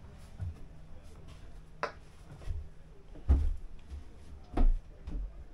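About half a dozen dull knocks and thumps at uneven intervals, the two loudest about three and four and a half seconds in, over a low steady background rumble.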